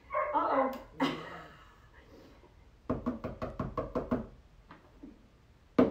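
A brief voice-like sound, then a sharp knock, then a rapid run of knocks or taps, about eight a second for just over a second, each with the same hollow ringing tone.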